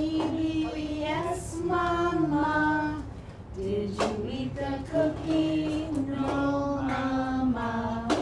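A woman singing a children's song unaccompanied, in phrases of long held notes. There is a single sharp knock about four seconds in.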